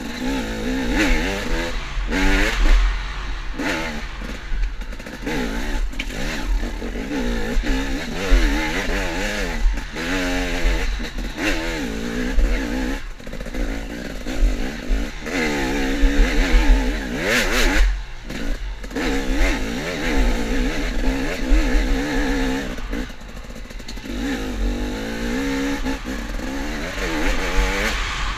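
KTM dirt bike engine revving up and dropping back again and again as the rider works the throttle along a tight woods trail, with a steady low rumble of wind underneath.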